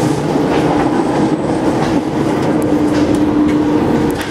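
Paris Métro Line 8 train (MF 77 stock) running into a station, heard from the cab: a steady whine over continuous wheel-on-rail noise, with a few clicks from the track.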